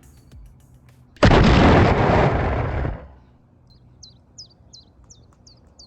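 A sudden loud burst of noise, like an explosion, about a second in, dying away over about two seconds. It is followed by a bird chirping in short, evenly spaced calls, about two a second.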